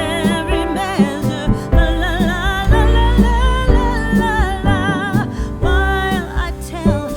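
A song playing: sung melody with vibrato over guitar and bass.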